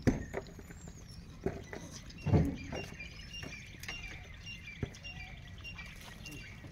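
Scattered short knocks and rustles from gray langurs feeding on bananas and moving over sandy ground, the strongest cluster about a third in. A faint high chirp repeats at a steady pace behind it from about a third in.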